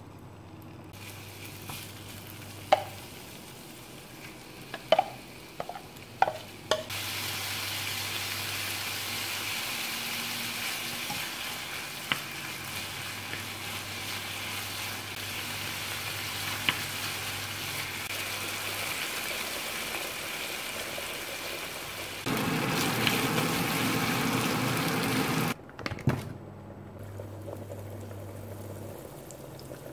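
Thin slices of meat frying in an oiled non-stick pan. A few sharp clicks of wooden tongs against the pan come first, then a steady sizzle as the meat is stirred with a wooden spatula. The sizzle grows louder for a few seconds near the end, then drops to a quieter sizzle.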